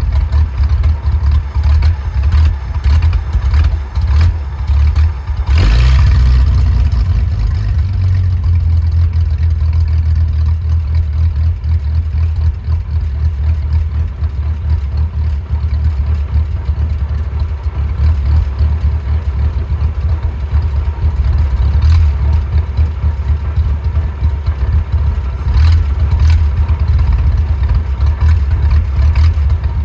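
Willys engine idling roughly and unevenly. About six seconds in there is a sharp loud burst, and the idle rises for a couple of seconds before settling back.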